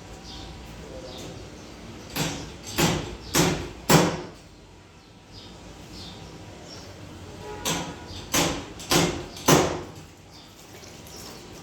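Sandpaper rubbed by hand over a car's paintwork to sand out scratches: two sets of four strokes, about one every 0.6 s.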